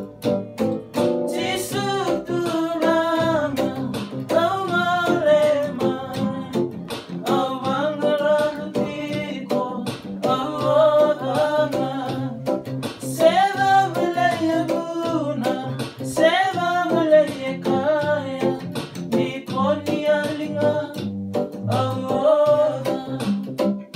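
Men singing a song, accompanied by a strummed acoustic guitar and an electronic keyboard.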